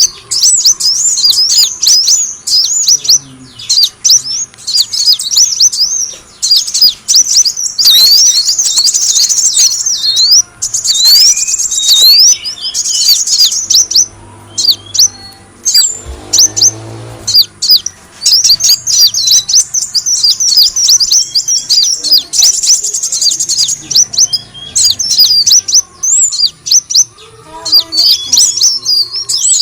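Kolibri wulung sunbird calling: rapid, high-pitched chirps and sweeping notes in quick runs, broken by a few fast trills. This is a lure call, played to draw the birds in.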